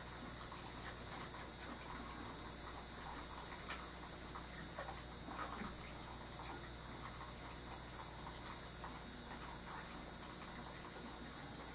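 Quiet room tone: a steady hiss and low hum with faint, scattered small ticks and taps.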